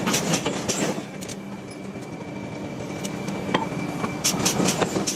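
Metal-on-metal clanking of steel forging work: groups of sharp strikes over a steady machine hum, one group at the start, a single strike in the middle and another group near the end.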